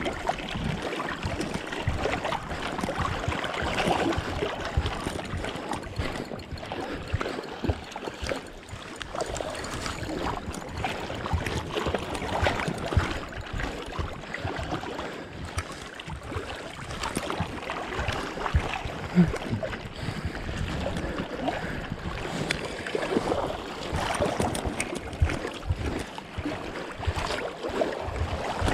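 Flowing river water and wind noise on the microphone, with frequent short knocks and rustles of handling.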